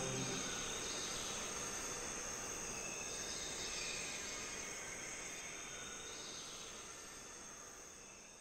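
Cricket-like insect chirring, a nature-ambience layer left after the synth music stops, fading out slowly.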